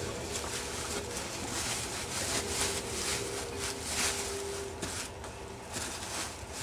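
Rustling and shuffling in dry fallen leaves as people move about, an irregular crackly rustle with a faint steady hum beneath it.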